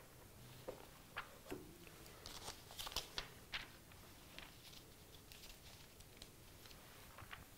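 Faint rustling of paper pages as a large altar missal is leafed through by hand, with a few soft taps and clicks; the busiest stretch of rustles comes about two to three and a half seconds in.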